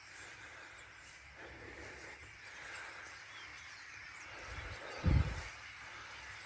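Massed chatter of a large flock of birds roosting in a tree line, a steady hissing din like rushing water. A single loud low thump about five seconds in.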